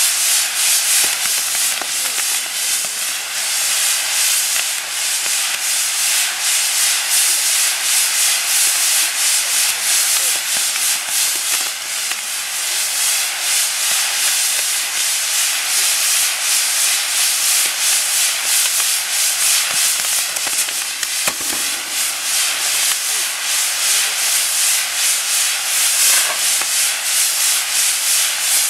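Maltese ground-firework wheel spinning, its gerbs burning with a loud, steady, high hiss that pulses quickly in and out as the wheel turns.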